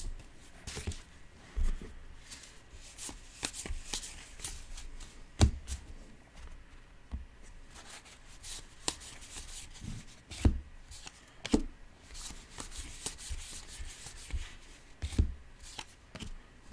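A stack of Topps Allen and Ginter baseball cards being flipped through by hand, one after another: cardstock rustling and sliding against card, broken by irregular sharper taps as cards are moved or set down.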